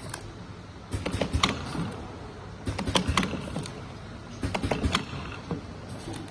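Automatic box labeling machine running: four spells of rapid clicking and clatter, about one every 1.7 seconds as each box passes the labeling head, over a steady machine hum.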